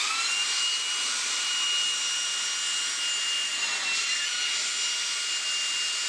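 Xiaomi Dreame XR cordless handheld vacuum cleaner with its small brush head pressed onto a pillow. The motor whines up to speed at the start, then runs with a steady high whine over rushing suction air.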